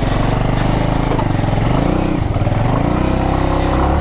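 Bajaj Avenger motorcycle's single-cylinder engine revving hard under load, its pitch rising and falling as the rider works the throttle up a steep, slippery laterite slope.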